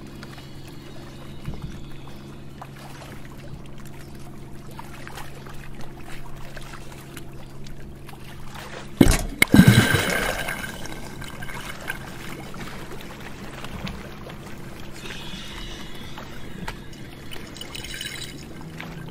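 Water sloshing over a steady low hum. About nine seconds in comes a sudden loud rush of water and bubbles as the weighted No Limits sled plunges under the surface with the freediver, fading over the next couple of seconds.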